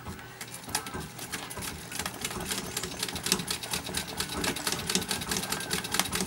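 Vintage straight-stitch treadle sewing machine stitching free-motion embroidery: a run of rapid needle clicks that starts sparse and picks up speed and loudness about two seconds in.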